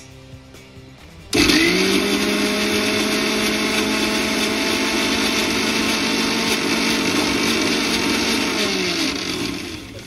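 Electric mixer grinder (mixie) motor switching on about a second in and running steadily at a constant pitch as it grinds soaked poppy seeds, green chili and water into a wet paste, then winding down with a falling pitch near the end.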